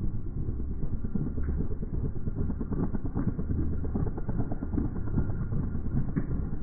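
Firefighting helicopter close by, a loud choppy low rumble from its rotor.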